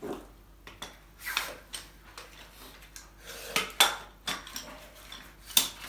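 Metal clinks and knocks of a barrel-type sausage caulking gun being loaded by hand: the sealant sausage set into the metal tube and the plunger rod and end cap handled. A handful of separate sharp knocks with rustling between, the loudest about two-thirds of the way through.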